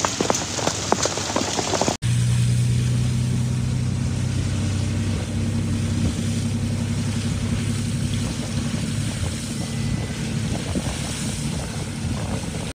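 For about two seconds, hail and rain fall on a road, with a hiss and many sharp hits. Then the sound cuts off sharply and is replaced by a vehicle's steady engine and road drone, heard from inside the cab while driving.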